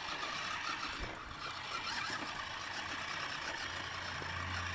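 Electric RC truck driving, its motor, gears and tyres making a steady whirring hiss; a low steady hum comes in near the end.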